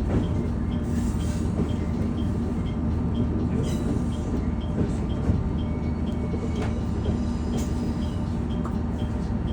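KiHa E130 diesel railcar running, with a faint high chime repeating about twice a second: the ATS chime that keeps ringing after the warning alarm has been acknowledged. A few light clicks from the running gear.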